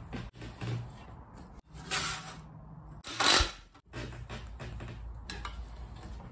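Clunks and scrapes of a 2 mm sheet-steel bracket being worked in a homemade sheet-metal folder. The sound is broken by several abrupt cuts, and the two loudest sounds are short, harsh scrapes about two and three seconds in.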